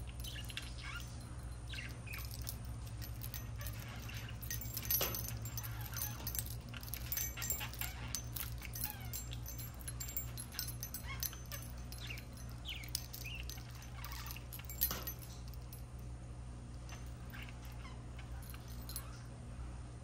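Budgerigars chattering: a busy stream of short chirps, squeaks and quick warbled notes, with a couple of sharper calls, over a steady low hum.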